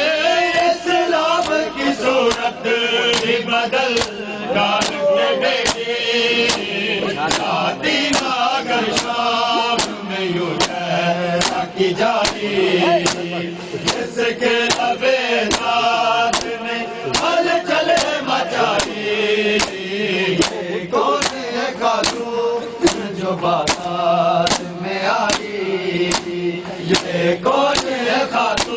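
Men chanting a Urdu noha (mourning lament) in unison, over a steady beat of open-hand slaps on bare chests (matam), about two strikes a second.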